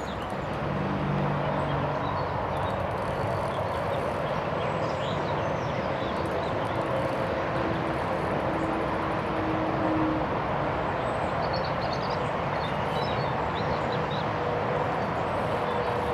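Steady road traffic noise, an even rushing hum, with scattered faint bird chirps over it.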